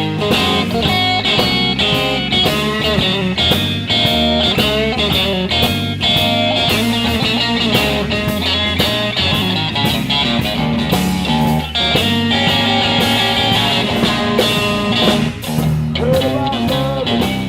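Live blues trio of electric guitar, bass and drums playing an instrumental passage between verses, the guitar bending notes over a steady drum beat.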